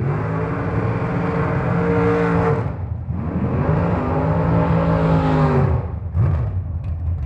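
Drag race car engine at full throttle. Its pitch climbs and holds, drops once about two and a half seconds in as if at a gear change, then climbs and holds again. The engine cuts off near six seconds, with a brief blip just after.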